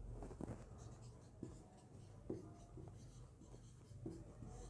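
Marker pen writing on a whiteboard: faint, short scratching strokes and taps, a few in a row.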